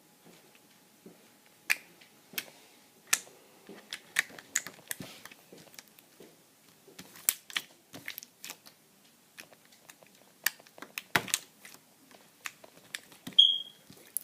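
Slime being squeezed and poked by hand, giving irregular sharp clicks and pops. A short high squeak comes near the end and is the loudest sound.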